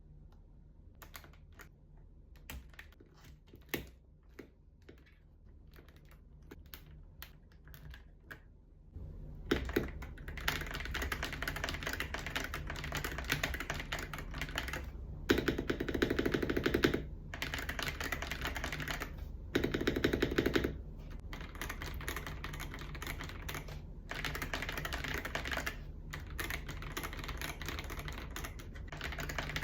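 Mechanical keyboard typing: a Yunzii X75 fitted with Akko V3 Cream Yellow Pro linear switches. It starts as scattered single keystrokes, then becomes fast continuous typing about nine seconds in, with two louder stretches around the middle.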